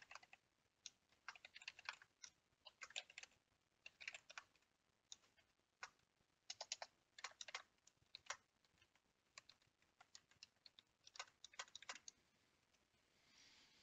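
Typing on a computer keyboard: quick runs of key clicks with short pauses between, faint, stopping about two seconds before the end.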